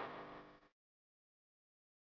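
Background music fading out and ending under a second in, followed by dead silence.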